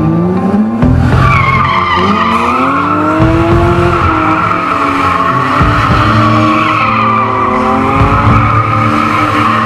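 BMW M3 drifting in tight donuts: a loud, steady tyre squeal starts about a second in, over the engine, whose revs climb at the start and then rise and fall as the car circles.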